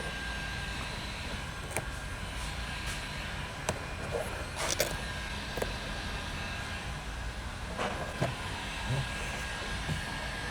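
Steady low background hum with a few faint scattered taps and rustles of vinyl film being pressed and smoothed by hand onto a door panel.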